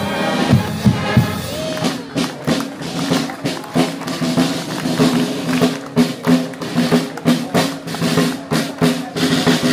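Marching band playing in a parade: sustained melody notes over drums beating a steady march rhythm.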